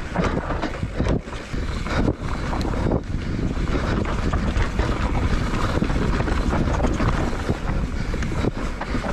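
Wind rushing over the camera microphone and mountain-bike tyres rolling fast on a dirt trail descent, with the bike knocking and rattling over bumps, several sharp knocks in the first few seconds.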